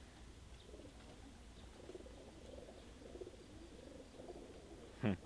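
Racing pigeons cooing softly and continuously. Near the end there is one short, louder vocal sound that falls in pitch.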